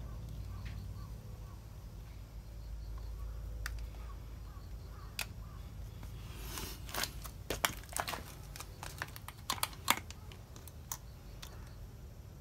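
An irregular run of sharp clicks and taps, about a dozen over four seconds starting partway in, from hands working the rubber spark plug cap onto a small two-stroke chainsaw engine's spark plug, over a low steady rumble.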